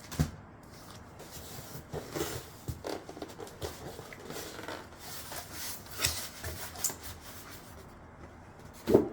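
Cardboard box and packing material being handled: rubbing, scraping and rustling with scattered light knocks, a sharp knock right at the start and a louder thump near the end.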